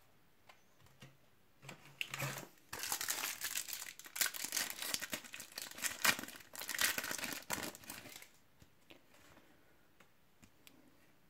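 Wrapper of a Topps Match Attax trading card pack crinkling and tearing as it is opened, a few seconds of continuous rustle that then stops.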